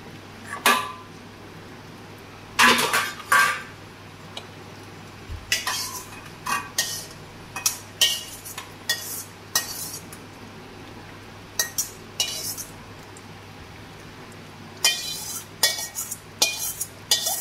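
Metal utensils clinking and scraping against a steel bowl and an aluminium kadai in irregular clusters of sharp knocks, with a short pause or two; near the end a bowl's contents are tipped and scraped into the pan.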